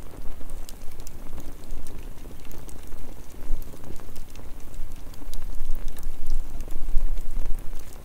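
Wood campfire burning, with sharp crackles and pops at irregular moments over a low rushing rumble.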